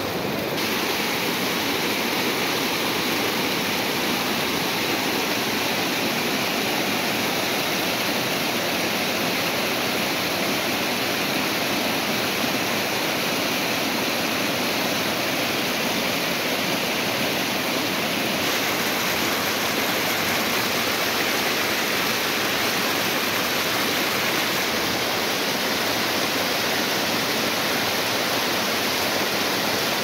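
A fast mountain stream cascading over rocks, a steady rushing of water.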